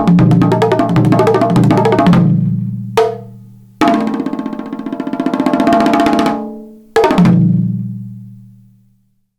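Solo Chinese percussion closing a piece: about two seconds of rapid drum strokes with ringing low pitches, a single accent about three seconds in, a fast roll that swells and then fades, and one last hit about seven seconds in that rings out and dies away to silence.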